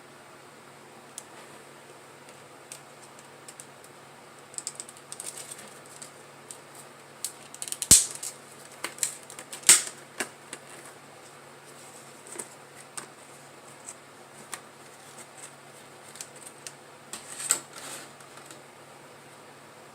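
Scattered light clicks and taps of hands working on a laptop, with two sharper knocks about 8 and 10 seconds in and another short cluster near the end.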